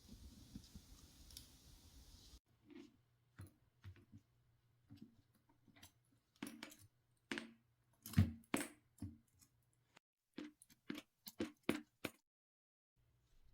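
A run of irregular light clicks and taps, as of small hard parts being handled, a little louder about eight seconds in.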